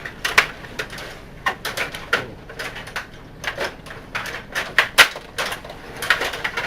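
Rod table hockey in play: irregular sharp clacks and rattles as the rods, plastic players and puck knock against each other and the boards, a few each second, with the loudest knock about five seconds in.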